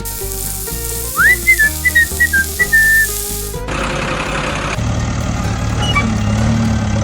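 A whistle slides up, then plays a short run of high notes over background music, with a hiss behind it that cuts off about halfway. A steady low engine-like hum then sets in.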